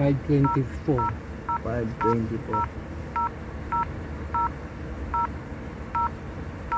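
Touchscreen of a QCY F11 Plus mirror dashcam beeping with each tap while the clock time is keyed in: about a dozen short, identical two-tone beeps, roughly one every half second to a second.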